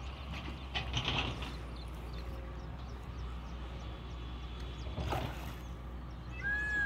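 Spinning fishing reel being cranked, with mechanical clicking, as a hooked fish is played on the line. Two brief louder noises come about a second in and about five seconds in, and a short high tone sounds near the end.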